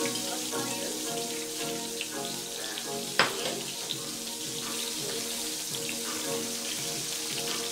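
Hot oil sizzling steadily in a frying pan as fish fries, with one sharp clack about three seconds in as the metal spatula knocks the pan, and a few lighter ticks. Background music with held notes plays underneath.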